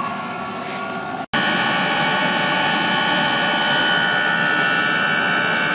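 Eberspacher diesel night heater running steadily at its exhaust, a rushing noise with a high, steady whine. About a second in, the sound cuts off for an instant and comes back louder, with a stronger whine.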